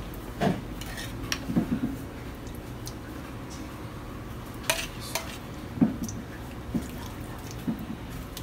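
Scattered light taps and scrapes of a plastic spatula against a sauce bowl and a glass baking dish as sauce is spooned and spread over macaroni, over a faint steady low hum.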